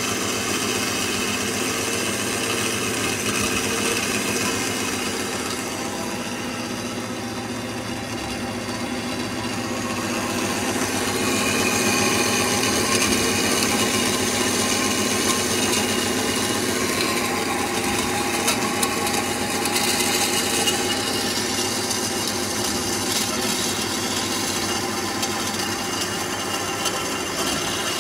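Kasto automatic vertical band saw running, its blade cutting through square metal tubing: a steady machine hum with a grinding cutting noise that grows louder about eleven seconds in.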